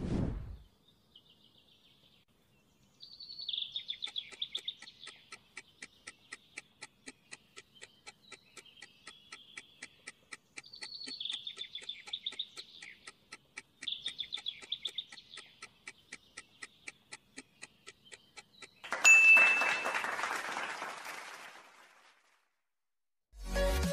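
Fast, steady clock-like ticking of a quiz countdown timer, laid over recorded birdsong in short chirping phrases. About 19 seconds in, a bright chime with a hissing swell marks the answer reveal and fades over a few seconds. Music starts right at the end.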